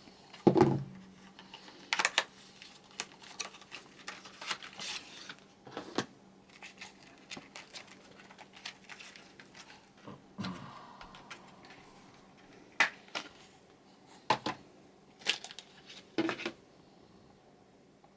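Irregular sharp clicks and taps of computer memory modules and their plastic packaging being handled as the RAM is readied for installation.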